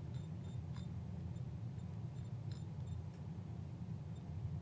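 Faint, quick little ticks from the Miniware DS213 pocket oscilloscope's small top dial being rolled click by click to move a measurement cursor, over a low steady hum.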